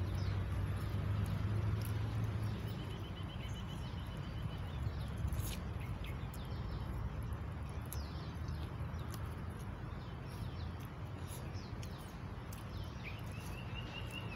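Outdoor ambience with a bird giving a short, rapid, evenly pulsed trill twice, about three seconds in and again near the end, over a steady low rumble and a few faint clicks.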